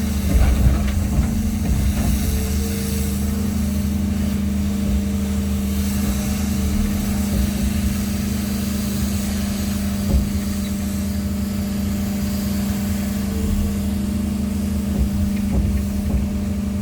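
Engine running steadily at a constant speed, with a few short knocks near the start and about ten seconds in.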